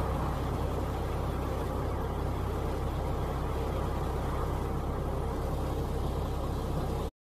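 Diesel semi-truck engine idling with a steady low rumble. It cuts off abruptly near the end.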